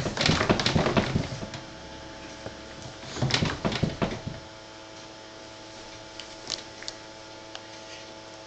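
Quick runs of knocking and clattering, one at the start and another about three seconds in, then only a faint steady hum.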